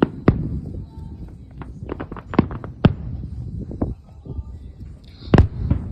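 Fireworks going off: a string of irregular sharp bangs and crackles over a low rumble, with one loud bang about five seconds in.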